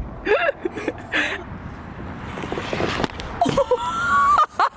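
A young woman's voice making short wordless vocal sounds, then a rushing noise in the middle and a high held note about four seconds in.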